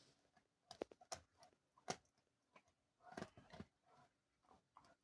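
Dog crunching on a dried beef trachea chew: faint, irregular crunches and clicks, the sharpest a little after one second and about two seconds in, with a cluster around three seconds in.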